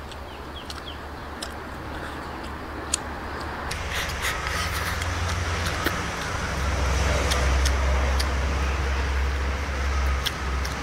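Chewing and light clicks of wooden chopsticks against a rice bowl, over a low rumble that swells from about four seconds in and eases near the end.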